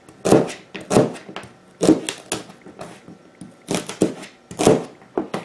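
Chef's knife chopping through celery stalks onto a thin plastic cutting mat on a wooden table: a run of irregular knocks, often two in quick succession, with short pauses between.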